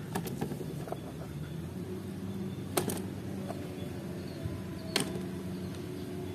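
Plastic toy figures coated in sticky black slime being picked up and handled, with two sharper knocks of plastic against plastic, a bit under 3 seconds and about 5 seconds in, and a few small clicks near the start, over a steady low hum.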